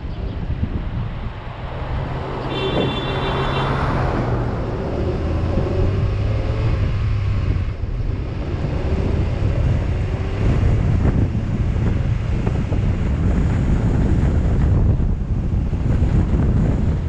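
Street traffic: vehicle engines running with a steady low rumble, and wind buffeting the microphone. A brief high-pitched tone sounds about three seconds in.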